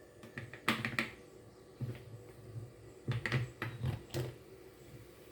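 Scattered light clicks and knocks, about ten in all, from a blender jar and its lid being handled; the blender motor is not running.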